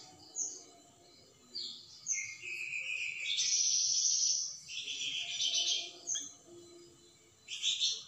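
Caged flamboyan songbird singing in bursts of rapid, high-pitched chirps and sharp notes, the longest phrase a little after the middle.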